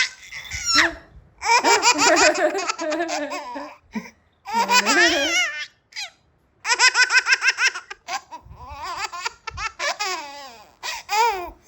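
Baby laughing out loud in several bouts of rapid, pulsing belly laughs, with short pauses for breath between them.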